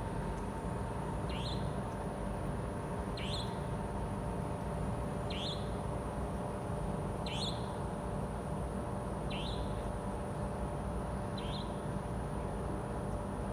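A short, high chirp repeated at a regular pace about every two seconds, over a steady background hum. This is the strange sound heard in the hospital at night.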